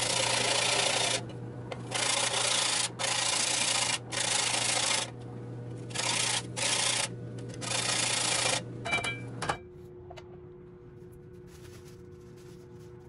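A small motor hums steadily under harsh grinding noise that comes in bursts of about a second with short breaks between; the hum and the grinding stop together about nine and a half seconds in.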